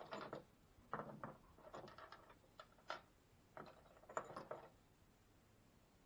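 Small metal fittings (bolts, nuts and Allen keys) clinking and rattling as they are handled and set down on a wooden workbench: a string of light clicks and short rattles, the last about halfway through.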